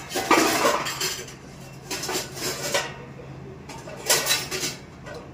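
Kitchen utensils and dishes clattering in three short bouts about two seconds apart.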